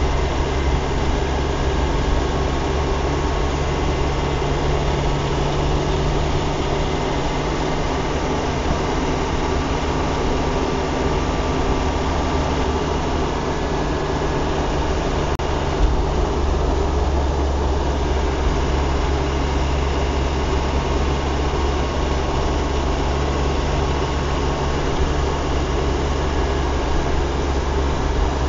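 Steady car driving noise heard from inside the cabin: a low engine and drivetrain hum with tyre and road noise on a wet road. A single brief click comes a little past halfway.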